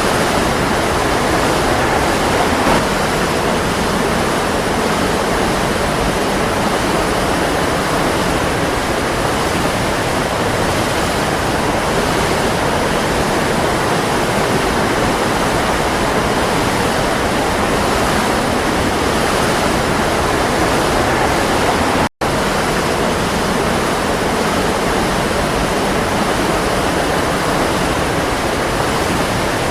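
Waterfall pouring in a steady, dense rush of water. The sound cuts out for an instant about twenty-two seconds in.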